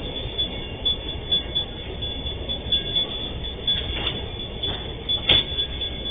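Empty freight wagons rolling past on the rails: a steady low rumble with frequent light clatter from the wheels, and two sharper clanks about four and five seconds in. Heard through a security camera's thin microphone.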